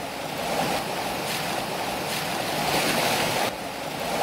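Fast-flowing muddy floodwater rushing down a debris-strewn road: a steady, even rush of water that eases slightly about three and a half seconds in.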